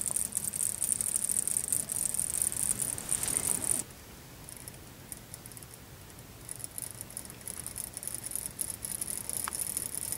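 Copper wire of a homopolar motor spinning on an AA battery stacked on neodymium magnets, its loose sliding contacts rattling and crackling rapidly. The rattle stops about four seconds in and picks up again, lighter, a couple of seconds later.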